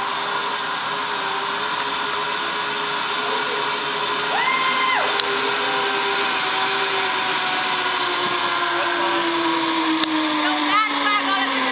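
Zip line trolley pulleys whining along the steel cable in a steady hum, which falls in pitch over the last few seconds as the trolley slows. A brief high whistle-like tone sounds about four seconds in, and short voices come near the end.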